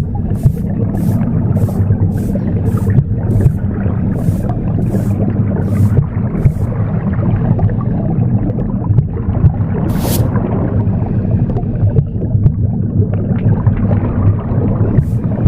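Low, continuous whooshing womb sound, a recording of the sounds heard inside the uterus, overlaid with a broom sweeping in short, evenly paced strokes of about two a second. The sweeping stops after about six seconds, with a single stroke near the middle, and starts again just at the end.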